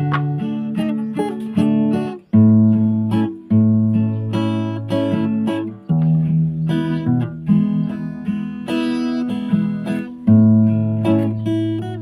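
Background music: acoustic guitar playing a plucked, strummed melody.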